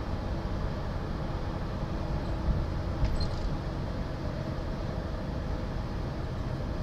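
Steady in-cabin road noise of a car driving, a low rumble of engine and tyres. Near the middle there are two bumps about half a second apart as the tyres roll from worn asphalt onto freshly laid pavement.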